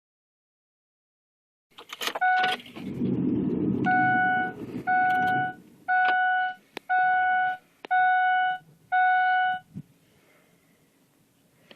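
A vehicle warning chime in a 7.3 Powerstroke Ford truck's cab sounding a single steady tone about once a second, six times, after a short beep and a few clicks.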